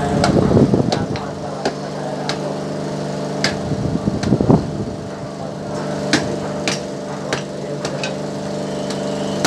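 A hammer knocking repeatedly on a husked coconut's hard shell to crack it: sharp, irregular strikes, roughly one or two a second. A steady motor-like hum runs underneath.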